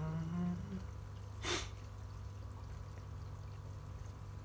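Steady trickle of water falling into an indoor fish pond, with a low steady hum under it. A man's drawn-out 'hmm' fades out in the first second, and a single quick sniff comes about a second and a half in.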